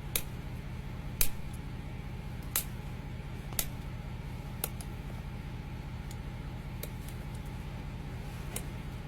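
Hoof being trimmed: a string of sharp, short snaps of hoof horn being cut, roughly one a second and thinning out after about five seconds, over a steady low hum.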